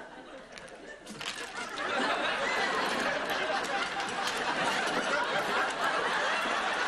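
Studio audience laughing, swelling about a second in and then carrying on loudly.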